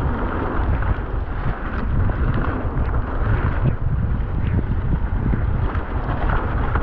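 Wind buffeting the rider's camera microphone at speed, over the steady rumble and small rattles of mountain bike tyres and frame running down a wet trail.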